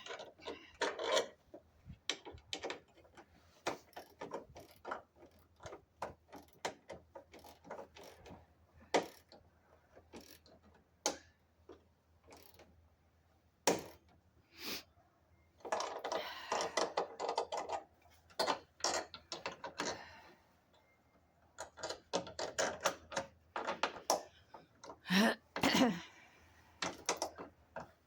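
Hand socket ratchet clicking in short runs as bracket bolts are snugged up, not yet fully tightened, with scattered knocks and clunks of tools against metal.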